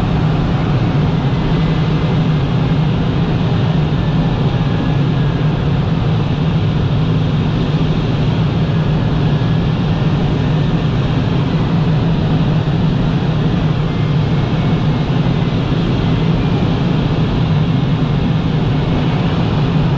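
Steady rush of air in a glider's cockpit on aerotow, with a low steady drone underneath and no change throughout.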